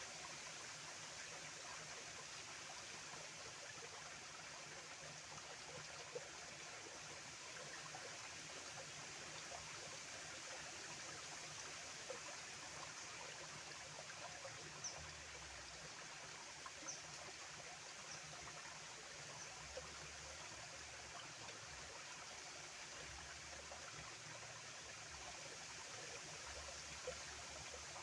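Water flowing in a small stream, a steady gentle rushing with a few faint brief splashes or drips.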